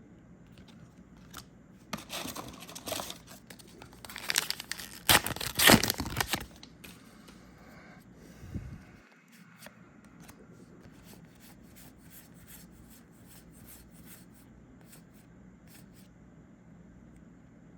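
A trading-card booster pack wrapper being torn open: a crinkly ripping for a few seconds, loudest about five seconds in. It is followed by faint, scattered clicks of cards being handled.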